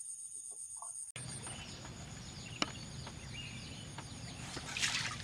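Chickens and other birds calling: many short chirping calls throughout, with a louder, harsh call near the end.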